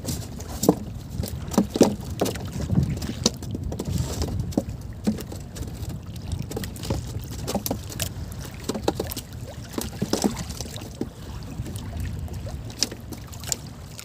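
Sea water lapping and slapping against the hull of a small outrigger boat: a steady low rush of water and wind, broken by many short, irregular knocks and splashes.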